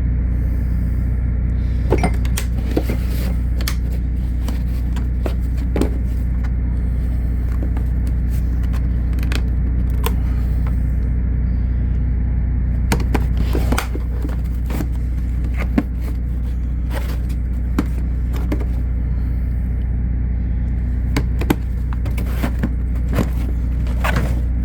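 Tool cases being unlatched and opened and the tools in them handled: scattered sharp clicks and knocks over a steady low hum.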